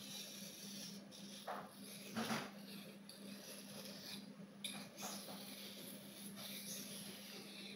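A few faint, short scrapes of a knife blade, irregular rather than a steady sharpening rhythm, the one about two seconds in the loudest, over a steady low hum.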